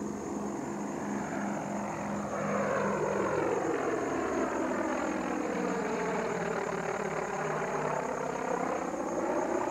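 Aircraft flying past low with a steady engine drone that grows louder about two and a half seconds in, with a sweeping, phasing whoosh as it passes. A pulsing low engine tone drops in pitch about midway as it goes by.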